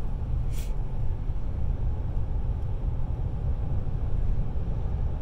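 A car driving, with a steady low rumble of engine and road noise. There is a brief hiss about half a second in.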